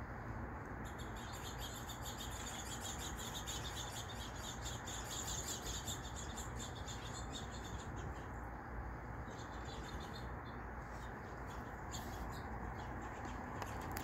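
Small songbirds chirping in quick, high, thin notes, densest in the first half and thinning out later, over a steady low background hiss.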